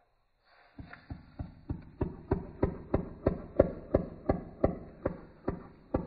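Keel-billed toucan calling in a rapid series of short croaks, about three a second, starting about a second in, growing louder toward the middle and then easing a little.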